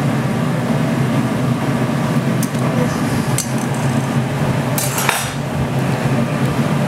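Steel glassblowing pipe rolled along the metal arms of the glassblower's bench, giving a few light metal clinks, over a steady low noise from the glass furnace.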